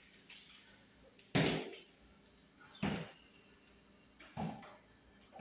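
Three dull thumps about a second and a half apart, from handling a coil of white electrical wire.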